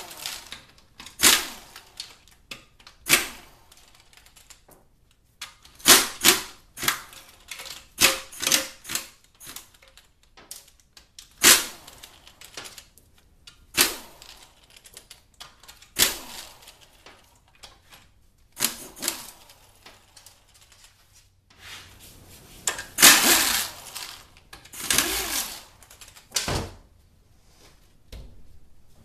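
Cordless ratchet spinning out the bolts of a transmission's valve body cover in short bursts, about twenty of them, some in quick clusters of two or three and others a couple of seconds apart.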